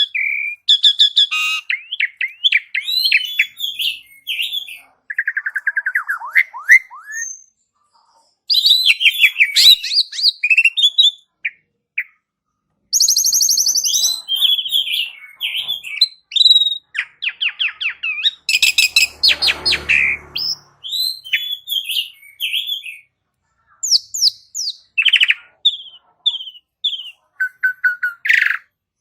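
Asian pied starling (jalak suren) singing: a fast run of varied whistles, chirps and chattering phrases broken by short pauses, with a harsh rasping burst about two-thirds of the way through.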